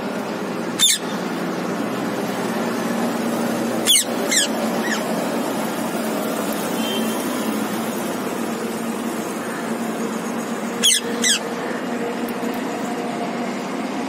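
Shrill, downward-sweeping screeches of rose-ringed parakeets: a single call about a second in, then two quick pairs of calls later on. They sound over a steady hum of city traffic.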